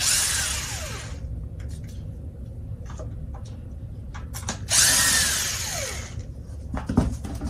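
DeWalt cordless drill/driver backing screws out of the underside of a metal stool seat. It makes two short runs of about a second each, one at the start and another about five seconds in, each ending in a falling whine as the motor winds down. Small clicks and knocks come between the runs.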